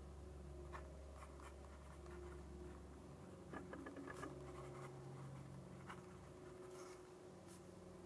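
Fountain pen nib writing on Fabriano Ecoqua paper: faint scratching strokes with a few light ticks, busiest about three and a half to four seconds in.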